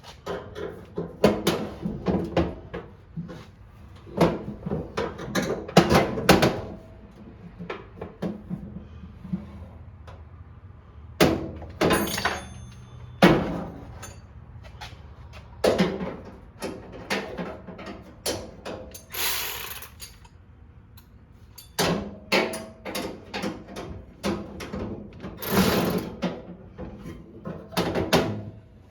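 Irregular clicks, knocks and clatters of tools and parts being handled on a lawn tractor during a headlight repair, with a few short hissy scrapes.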